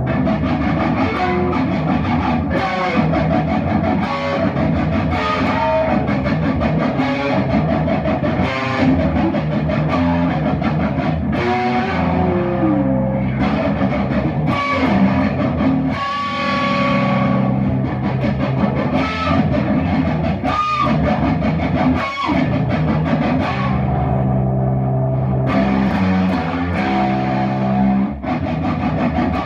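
Instrumental guitar music playing continuously, with a few sliding notes.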